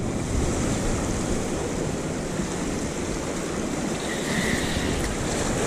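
Sea waves washing against the shore rocks in a heavy swell, a steady rushing noise, with wind buffeting the microphone.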